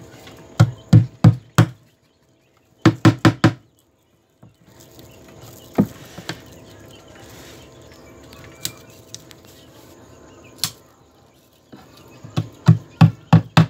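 Small hammer tapping wire staples into a plywood wall to fix a lamp socket's cord: quick runs of three or four blows, a few single taps, then a run of about six blows near the end.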